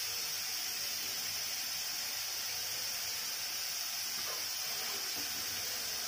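A steady hiss with no words, and a faint light knock about four seconds in as a steel plate is taken up.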